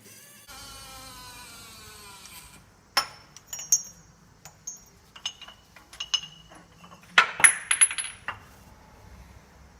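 A whirring that slowly falls in pitch for about two seconds, then a string of sharp metallic clinks and knocks from tools and steel parts being handled during a wheel hub bearing replacement, the loudest cluster a little after the middle.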